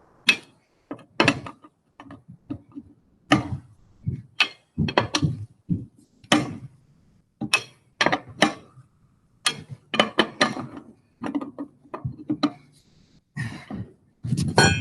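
Wrench working the wheel's lug nuts in a final tightening pass: irregular metallic clicks and clanks, a few a second, with short pauses between nuts.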